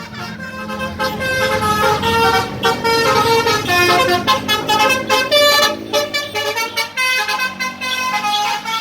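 A bus's Basuri telolet horn, a set of multi-tone horn trumpets, playing a fast melody of changing notes without a break.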